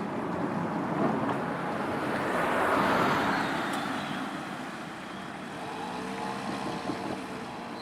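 A vehicle passing the level crossing, growing louder to its nearest point about three seconds in and then fading away.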